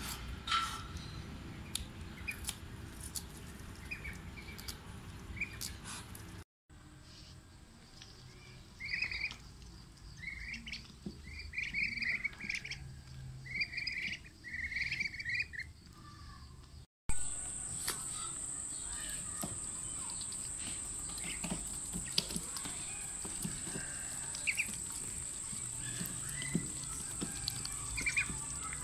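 Young Muscovy ducks peeping, a run of about six short high calls, among light clicks of bills pecking food from a hand.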